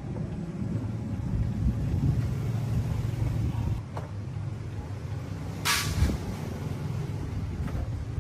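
An engine running with an uneven low rumble, and a short hiss about six seconds in.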